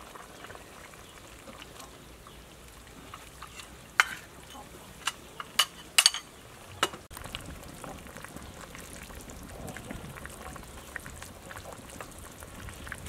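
A metal ladle scooping soup from a metal pot into a ceramic bowl, with several sharp clinks and knocks about four to seven seconds in, over a low steady background hiss.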